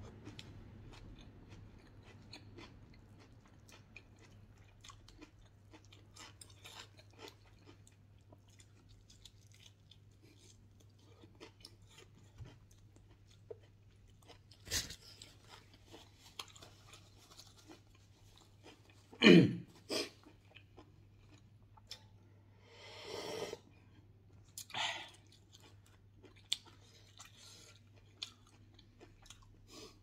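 Close-up chewing of a hand-eaten meal of cooked wild bird and raw vegetables: faint wet chewing clicks and crunches throughout. A few louder short sounds come in the second half, the loudest about two-thirds of the way through.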